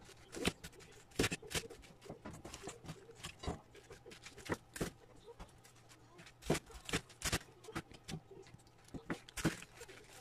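Napa cabbage being cut with a knife on a plastic cutting board: irregular sharp knocks of the blade on the board, with crisp crunching and rustling of the leaves as the pieces are handled.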